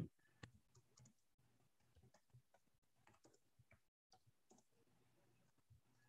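Near silence, with a few faint computer mouse clicks, the clearest about half a second in.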